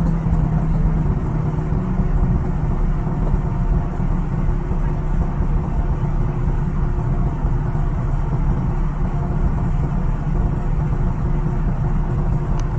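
Tracked hydraulic excavator's diesel engine idling steadily, a low rumble.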